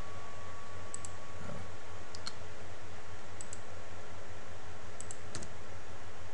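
Light clicks from working a computer's mouse and keyboard, coming as about five quick double clicks spread over a few seconds, over a steady low hum.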